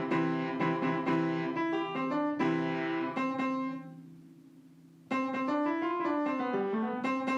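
Background music: a piano-like keyboard melody in two phrases, the first fading out about four seconds in and the next starting about a second later.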